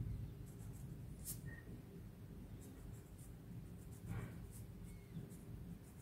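Pencil scratching in short strokes on pattern paper as a curved line is drawn, faint, over a low steady background hum.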